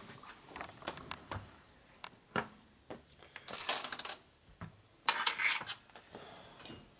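Small steel shims clinking against each other and on a workbench as they are picked through by hand: a scatter of light metallic clicks, with a brief bright rattle about three and a half seconds in and a short scrape about five seconds in.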